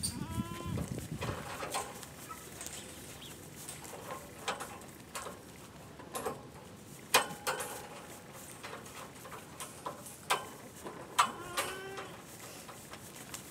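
Goats bleating: a short call near the start and another about eleven seconds in, with scattered sharp knocks and rustles from the animals around the pen.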